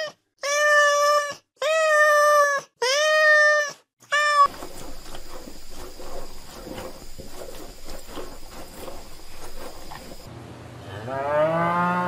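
A cat meowing: three long, high meows of about a second each, then a short one. Then a quieter stretch of shuffling noise with a faint steady high tone, and near the end a cow starts a moo that rises in pitch.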